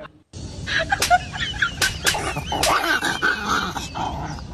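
A dog vocalizing in high, wavering whines and yelps, with a few sharp clicks among them.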